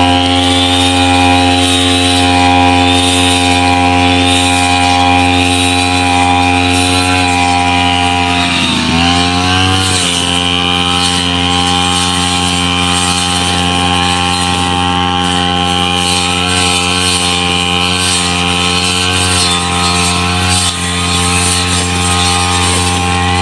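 Backpack brush cutter's engine running at a steady high speed while cutting tall wet grass. About nine seconds in, the engine speed sags briefly under the load, then picks back up.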